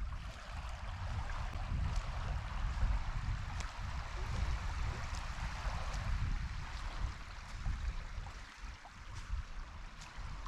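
Calm sea water washing and lapping in a steady hiss, with gusts of wind buffeting the microphone; the wind eases near the end.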